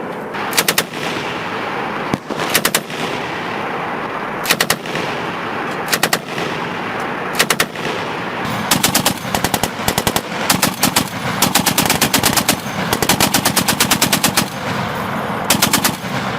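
American machine gun firing short bursts of a few rounds, about every two seconds at first, then longer and closer-spaced bursts in the second half.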